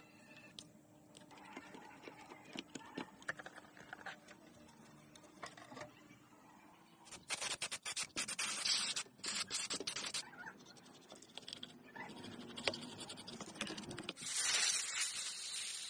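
Brush scrubbing dust and grime off an old CRT television's circuit board in quick scratchy strokes, after a stretch of small clicks and handling of plastic parts.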